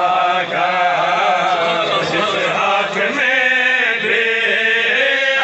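A man chanting an Urdu devotional poem into a microphone, holding the melody on long, wavering notes.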